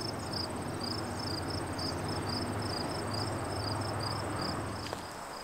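Insects chirping in summer woodland: a regular high chirp repeated about two or three times a second over a steady high-pitched trill, with a low steady hum beneath. All of it cuts off shortly before the end.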